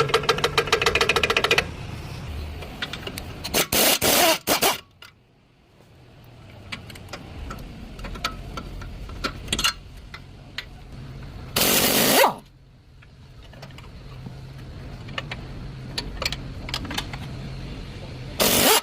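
Car repair work noise: a fast mechanical rattle at the start, then several short loud bursts of noise spaced seconds apart, over a low steady hum with scattered clicks and knocks.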